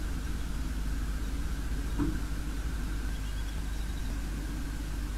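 Steady low rumble and hum of an outdoor nest camera's microphone, with a faint steady whine above it and one short knock about two seconds in.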